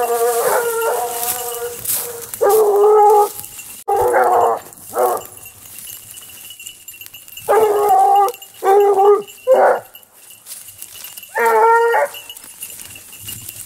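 A pack of blue basset hounds baying: about eight drawn-out, pitched bays, some from several hounds overlapping, as the hounds give tongue while working a scent.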